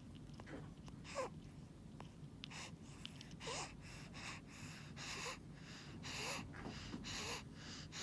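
Breathing with stridor: a rapid run of wheezy, squeaky breaths, about one to two a second, several with a note that slides in pitch. Stridor is the sign of a narrowed upper airway.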